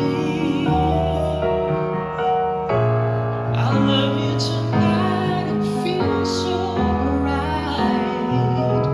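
Slow music of sustained chords, the bass notes changing about every second.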